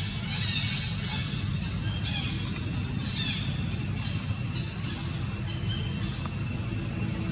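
Repeated high-pitched squawking animal calls, thickest in the first few seconds and thinning after, over a steady low hum.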